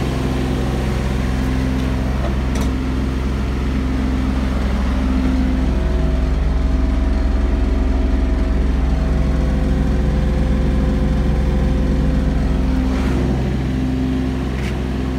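Kubota KX018-4 mini excavator's three-cylinder diesel engine idling steadily. It gets a little louder in the middle and eases back near the end.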